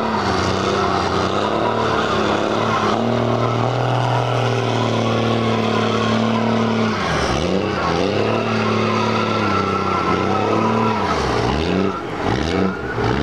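Pickup truck engines held at high revs in a tug-of-war pull, tyres spinning in the dirt. About seven seconds in, the revs start dropping and climbing again and again.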